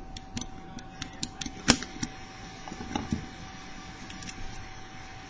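Small irregular metallic clicks of a lever pick and tension wrench working the brass levers inside a 4-lever padlock, with one sharper click about a second and a half in.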